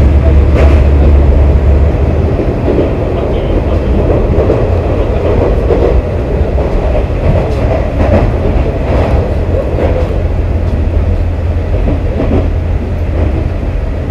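KiHa 47 diesel railcar running between stations: a steady low engine drone with rolling rumble from the wheels and occasional clicks. The drone eases slightly about two seconds in.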